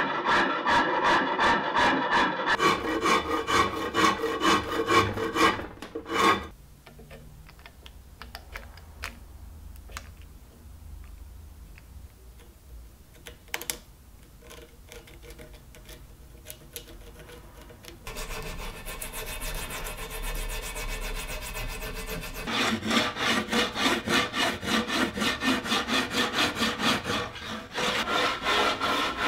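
Quick rhythmic strokes of a hand rasp or file cutting a wooden table leg held in a bench vise. About six seconds in the strokes stop, leaving a quiet stretch with a few faint clicks, and the rhythmic scraping strokes on the wood start again later and run on to the end.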